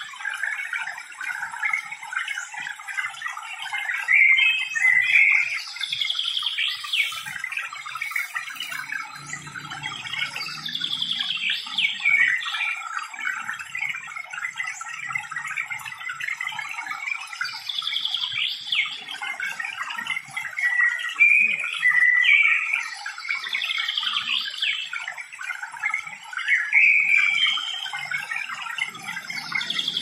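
Birds singing in garden trees: a dense chorus of chirps, with one bird repeating a falling high phrase about every five to six seconds.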